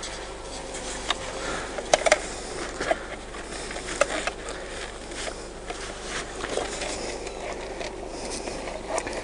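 Scattered light clicks and knocks from hive boxes and fittings being handled, over a steady faint background hum.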